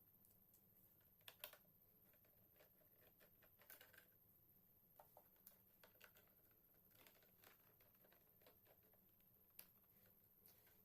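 Faint, scattered small clicks and taps of hands working on a laptop's plastic case and small parts, with a sharper double click about a second and a half in.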